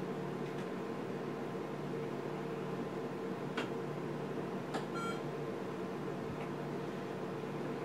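Steady hum of an ultrasound scanner in a small room. Two short clicks come about three and a half and four and a half seconds in, followed at about five seconds by a brief electronic beep as a caliper measurement is taken.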